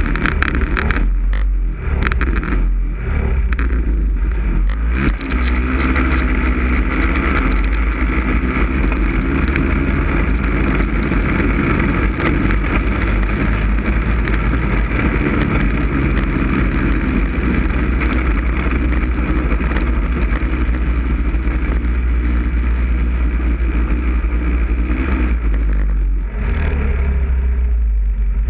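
Snowmobile engine pulling away and running at steady speed over bare lake ice. There is clattering in the first few seconds, the engine pitch rises about five seconds in and then holds, and it eases off briefly near the end before picking up again. A steady deep rumble runs underneath throughout.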